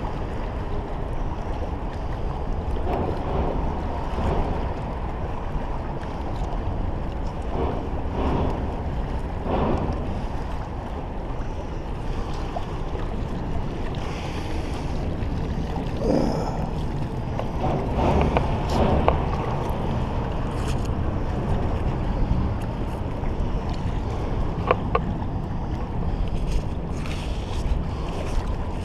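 Steady wind rumble on the microphone over river water, with a few short knocks scattered through, the clearest in the middle and near the end.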